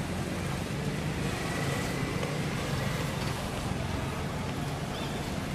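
Steady low rumble of background noise, even throughout, with a faint thin whine briefly in the middle.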